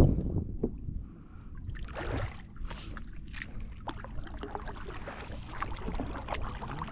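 Water lapping and small splashes around a canoe on a lake, starting with a splash that dies away within about the first second as a swimmer goes under.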